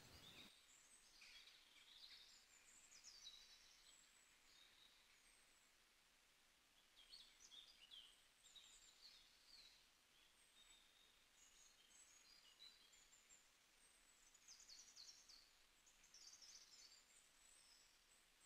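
Near silence, with faint, high bird chirps scattered through the background.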